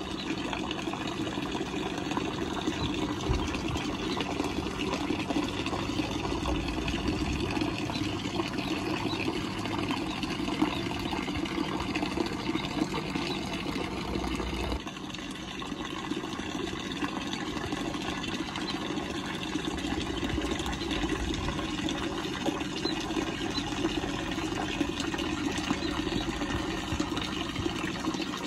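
Water from a small fountain jet splashing steadily into a shallow pond, a continuous splash and trickle that dips slightly in level about halfway through.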